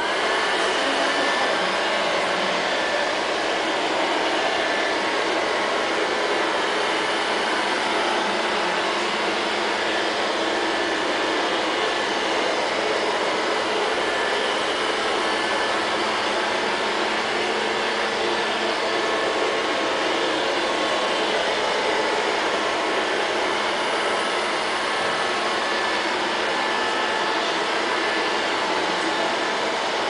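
LL-302 robot vacuum cleaner starting up suddenly after being switched on by remote, then running its suction fan and brushes with a steady whirring hum as it drives across a tiled floor.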